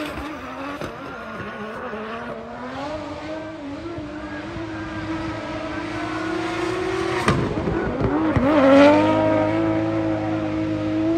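Drift car engine held at high revs, its note climbing slowly, dropping sharply about seven seconds in and again briefly a second later, then holding a steady high note.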